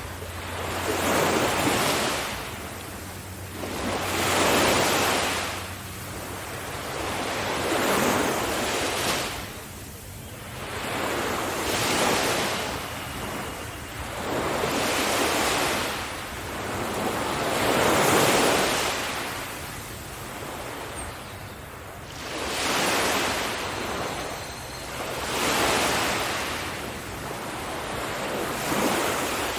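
Waves breaking and washing up a sandy beach, each surge swelling and fading about every three to four seconds.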